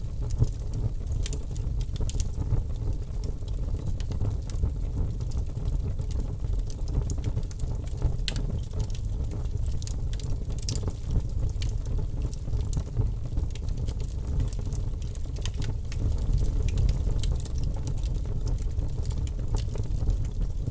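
Wood fire crackling: scattered, irregular sharp pops and snaps over a steady low rumble of burning.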